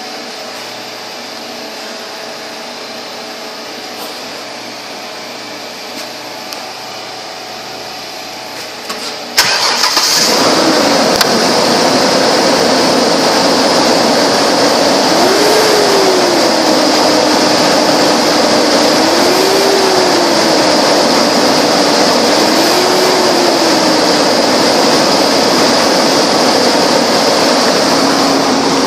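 A 2002 Ford Ranger's 4.0-litre SOHC V6 starts suddenly about nine seconds in, after a stretch of low steady hum. It then runs steadily, with three short revs.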